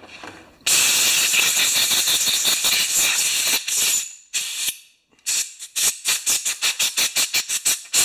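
Compressed-air blow gun blowing off a freshly cleaned lawnmower carburetor: a steady hiss of air of about three seconds starting a little under a second in, one short blast, then a rapid series of quick puffs, about four a second, as the trigger is pulsed.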